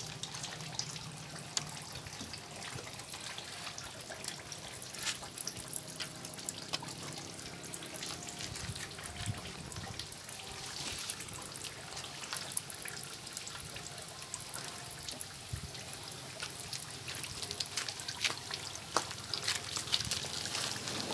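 Excess water glass (sodium silicate locking agent) trickling and dripping from a freshly soaked batik cloth as it is hung and handled, with wet fabric rustling and small splashes. Near the end the gloved hands work cloth in the tub of the liquid.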